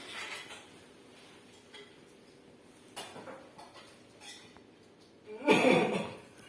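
A man gives one loud, deliberate cough near the end: the forced cough of the effective-coughing technique that follows chest physiotherapy, meant to clear phlegm.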